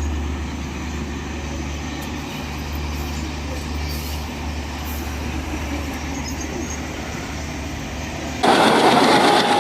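Electric-hauled express train running: a steady low rumble, which about 8.5 seconds in jumps suddenly to a much louder rushing noise of the train close by.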